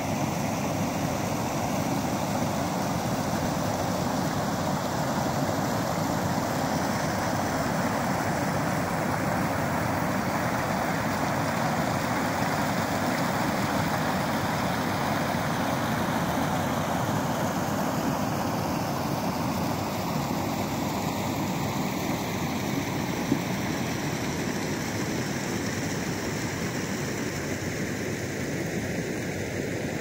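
Small mountain stream flowing steadily over rocks and a low cascade, an even rushing of water.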